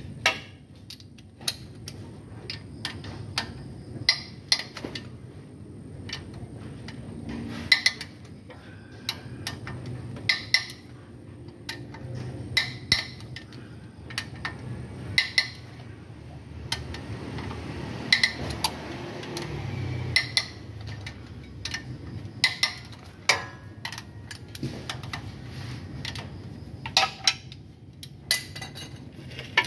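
Metal hand tools clinking and knocking against each other and against engine parts in irregular sharp strikes, several ringing briefly, as bolts are worked loose.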